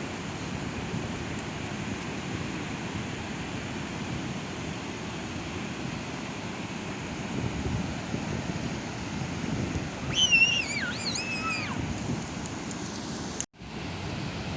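Sea waves breaking on a beach with wind rumbling on the microphone. About ten seconds in, a high-pitched voice cries out in a few gliding shrieks, and near the end the sound cuts out for a moment.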